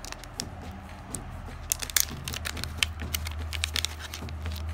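Clear plastic zip bag crinkling and crackling as it is pulled open and the resin parts inside are handled, with a run of sharp crackles about two seconds in.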